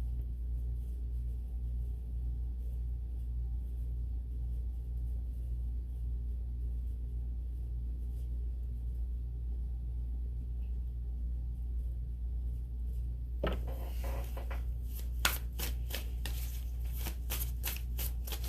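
Steady low hum, then, about three-quarters of the way in, a quick run of crisp card flicks and rustles: a tarot deck being shuffled.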